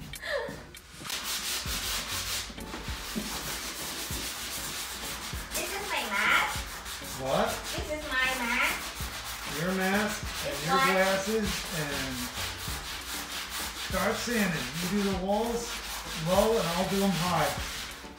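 Drywall wall being sanded by hand, the sandpaper rubbing over spackle in quick back-and-forth strokes. From about six seconds in, a pitched sound rising and falling about once a second runs alongside the strokes.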